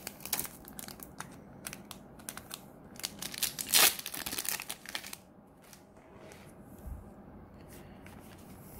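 Foil trading-card booster pack wrapper crinkling and tearing open by hand, with a run of sharp crackles and a loud rip a little before the middle.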